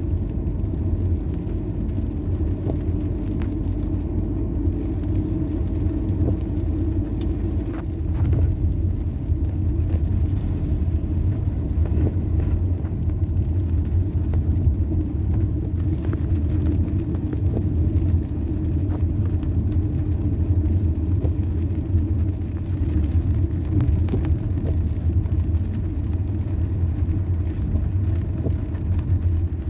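Steady low rumble of a car driving on a rain-soaked road, heard from inside the cabin: engine and tyre noise, with a few faint scattered ticks.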